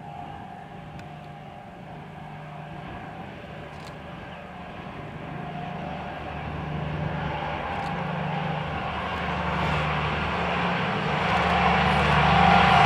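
Locomotive approaching, the low drone of its diesel engine growing steadily louder over the whole stretch.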